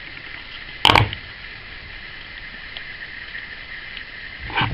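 One sharp snip about a second in as combination pliers cut through the excess leg of a soldered LED component.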